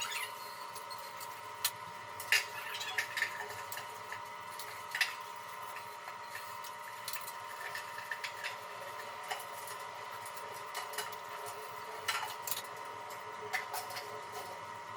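Irregular light clicks and taps of hand tools at work on bathroom tile, over a faint steady hum.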